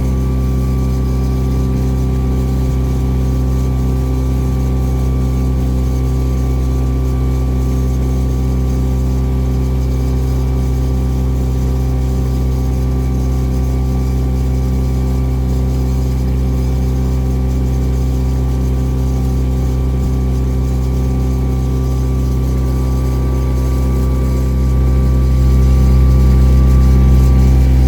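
Lake cruise boat's engine running steadily, a low even drone that grows louder near the end.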